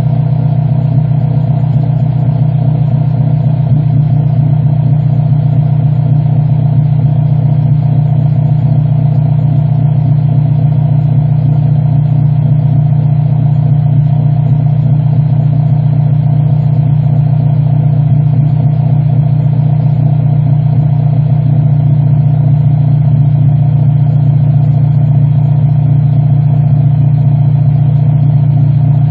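2006 Honda Civic Si's K20 2.0-litre four-cylinder idling steadily through a DNA Motoring full-race catback exhaust, with a loud, even, low exhaust note.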